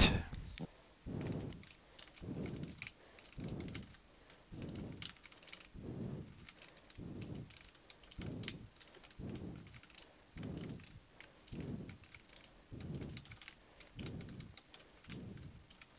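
Quiet typing on a computer keyboard, a steady run of keystrokes as lines of code are entered.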